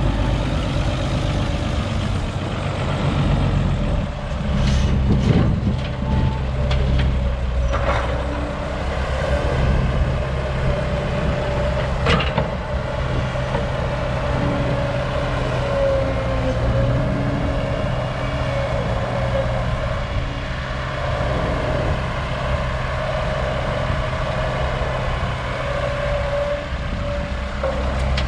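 Old Caterpillar excavator's diesel engine working steadily under load, with a steady whine over the engine and a few sharp knocks.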